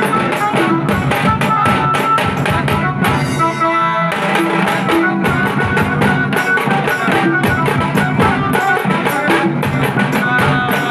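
A tasa band playing a fast, dense beat on tasa and dhol drums, with an electronic keyboard melody of a Shyama Sangeet devotional tune coming through a loudspeaker stack. The drums break off for about a second around three seconds in, leaving the melody alone, then come back in.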